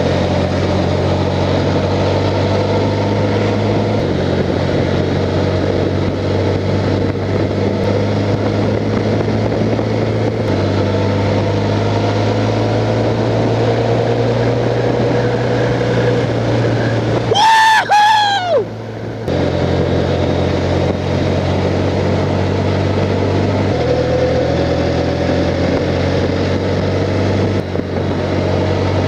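Honda Crosstourer's V4 engine running steadily at cruising speed, its note stepping up or down a few times. About two thirds of the way through, a brief, loud, high-pitched two-note sound lasting about a second and a half cuts over it while the engine note drops out.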